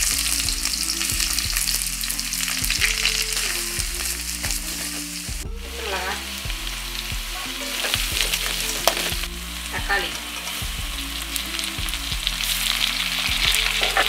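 Sliced onions sizzling in hot oil in a stainless steel kadai, stirred with scrapes and knocks of the spatula against the pan. The sizzle breaks off briefly about five seconds in, then carries on as chillies and tomatoes join the onions.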